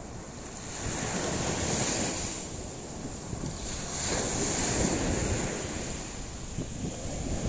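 Small surf waves breaking and washing up a sandy shore, swelling twice, with wind buffeting the microphone.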